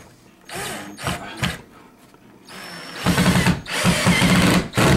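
Cordless drill/driver driving a screw through a door hinge into a stripped jamb hole packed with pencil wood. The screw bites and holds. The motor runs in a couple of short bursts, then almost continuously from about three seconds in, with brief pauses.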